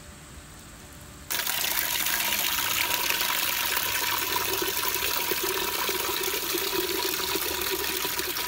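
Water from a plastic tap on a PVC pipe gushing into a metal cooking pot as it fills. The loud, steady rush starts suddenly about a second in.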